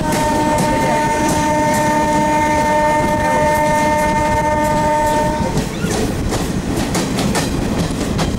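Train's locomotive horn giving one long, steady blast of about five and a half seconds, then cutting off, sounded as the train nears a level crossing. Beneath it and after it, the rumble and clickety-clack of the coaches' wheels on the rails.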